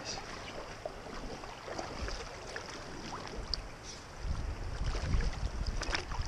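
Light creek water splashing and dripping as a hooked small bass is handled at the surface. From about four seconds in, a low rumble of wind buffeting the microphone grows louder.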